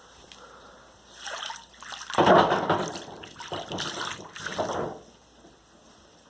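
Water splashing and sloshing in a flooded basement, with several irregular bursts over about four seconds, the loudest about two seconds in. The water is leaking from the gas fireplace's vent pipe junction.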